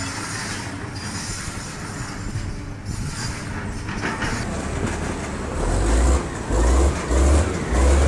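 Demolition machinery: a steady mechanical rumble with hiss while a long-reach excavator works on a high-rise, then, after a cut about four seconds in, a large tracked excavator close by with several loud, low rumbling surges.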